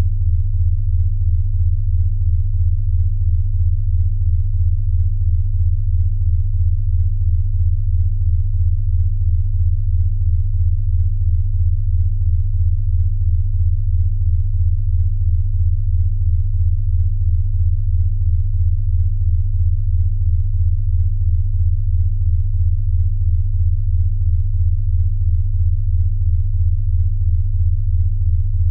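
Synthesized low-pitched sine tone for snoring sound therapy, steady in pitch and pulsing evenly about three times a second.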